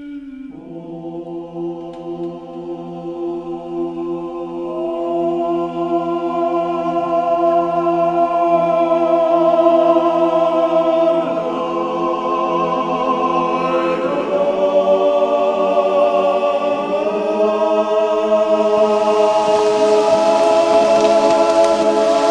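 Background music of slow, sustained chords that swell over the first several seconds and change every few seconds, with a hiss rising near the end.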